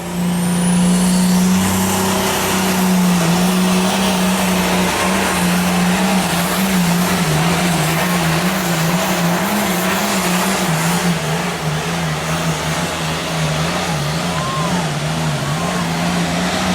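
Engine of a truck or tractor making a pulling run, held at high revs under heavy load, its pitch wavering up and down over a dense noise of exhaust and machinery.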